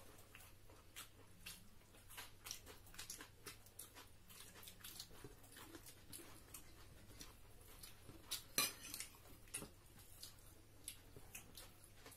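Faint eating sounds: chewing, lip smacks and scattered small clicks of fingers and tableware on plates as rice is eaten by hand, with one sharper click a little over two-thirds through.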